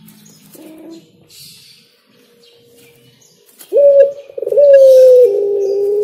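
Caged collared dove cooing: a few faint soft notes, then about halfway through a loud coo, a short note followed by a long drawn-out note that slowly falls in pitch.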